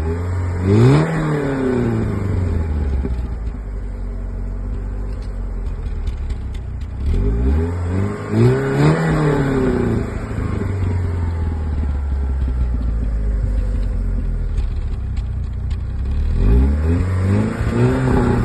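Peugeot 406 1.8 16V four-cylinder petrol engine with its stock exhaust idling, revved up and let fall back three times: a short blip about a second in, a longer rev in the middle and another near the end.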